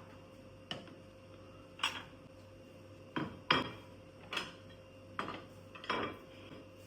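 Kitchen dishes and utensils clinking and knocking: about seven separate sharp knocks at uneven intervals.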